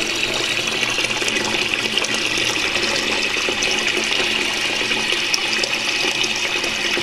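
Toilet cistern refilling through its ball valve: a steady hiss of water running into the tank.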